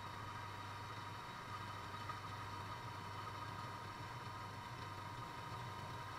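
Bench drill press motor running steadily with a low hum and a thin steady whine while its twist bit drills into an aluminium router insert plate.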